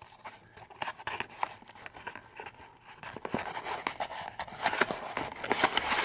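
A cardboard product box being handled and slid open on a hard table: scattered light scrapes, taps and rustles that grow busier near the end.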